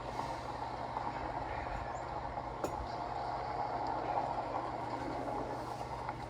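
Steady vehicle traffic noise, a little louder in the middle, with a few light clicks.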